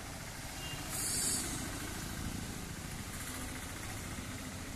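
Steady low rumble of outdoor background noise, with a brief hiss about a second in.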